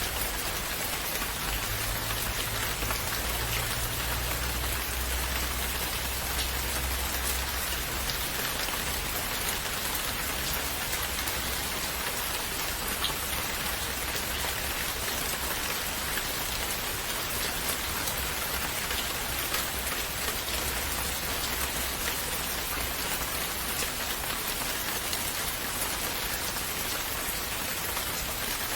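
Steady rain falling, an even hiss with faint scattered drop ticks and a low rumble in the first few seconds.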